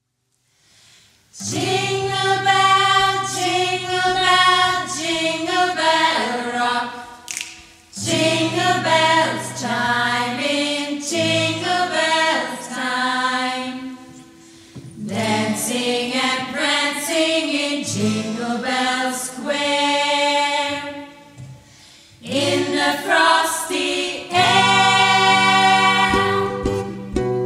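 Choir singing a cappella in several-part harmony, starting about a second in after silence, in phrases broken by short pauses.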